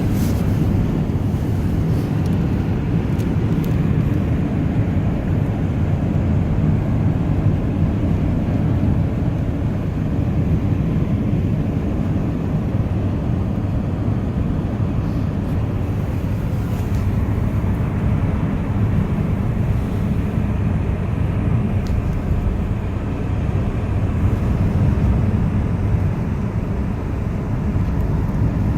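Steady low drone of a car driving, tyre and engine noise heard from inside the cabin.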